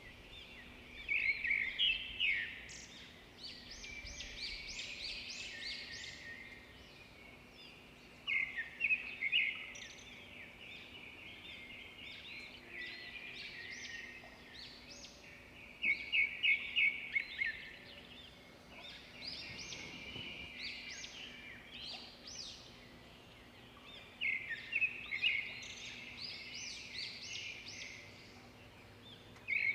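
Birds chirping in short bursts of quick, high notes that come back about every eight seconds, with a faint steady hum underneath.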